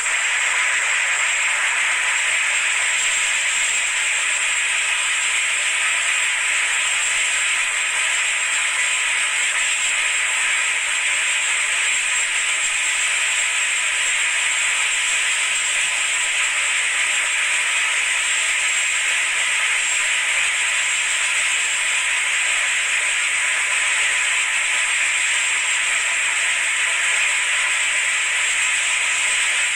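Steady, loud din of running ship's engine-room machinery, a constant hiss-like roar with a thin high whine held throughout.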